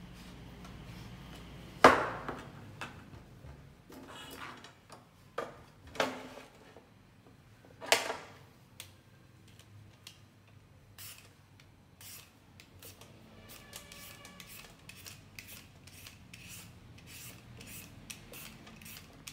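A kitchen knife cutting a cucumber on a plastic chopping board gives a few sharp knocks, the loudest about two seconds in. From about halfway on, a julienne peeler is drawn again and again down the cucumber, about two short scraping strokes a second, shredding it into thin strips.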